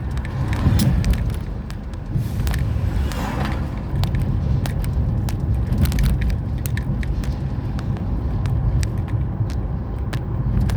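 A car on the move: a steady low rumble of engine and tyres, with many short sharp clicks and knocks scattered over it.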